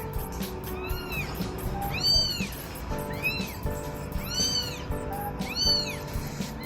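A young kitten meowing repeatedly in high, rising-and-falling cries, about six times, over background music.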